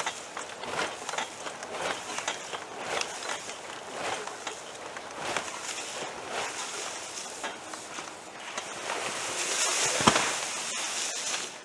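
Rustling and crunching of wet, packed leaves being pulled out by hand from a DR leaf vacuum's collector, in irregular handfuls, growing to a louder, steadier rustle near the end.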